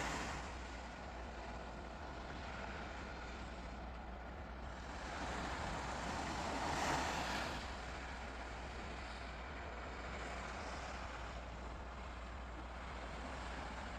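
Sea waves washing in, one breaking louder about seven seconds in, over a steady low rumble.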